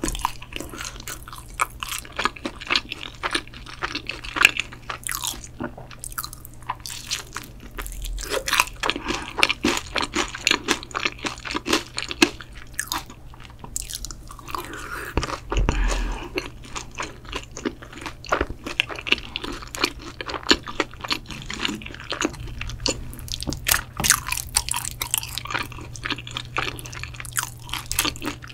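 Close-miked eating of crispy fried boneless chicken: crunchy bites and chewing, with many crisp crackles throughout and a bigger bite about halfway through.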